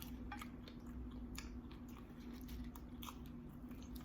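Close-up chewing of seafood nachos: a string of small, irregular mouth clicks and crunches from tortilla chips and shellfish, faint, over a steady low hum.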